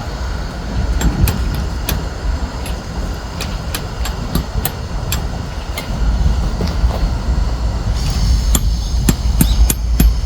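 Irregular sharp clicks and knocks, several a second, over a steady low rumble that grows louder a little past the middle.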